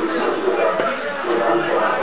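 A knife chopping tilapia pieces on a wooden block, with one sharp chop a little under halfway through, over a steady background voice.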